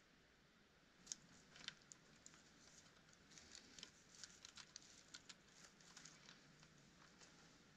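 Faint, irregular small clicks and rustles of hands wrapping and tying snare wire around a stick, with fingers brushing dry leaves and spruce twigs.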